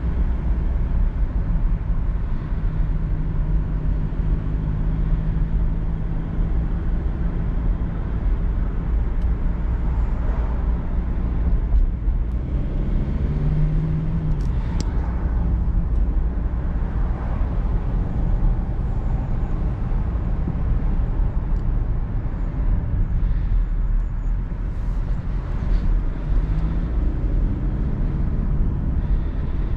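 Mercedes-Benz E220d cabriolet's four-cylinder turbodiesel under way with the roof down: a steady engine note under heavy road and wind rumble. The engine note swells and falls briefly about halfway through.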